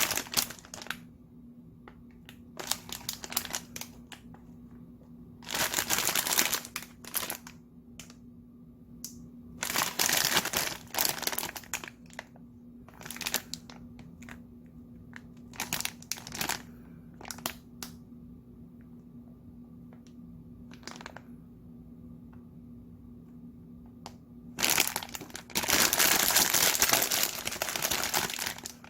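Plastic instant-noodle packet crinkling in repeated bursts as it is handled, the longest near the end, over a steady low hum.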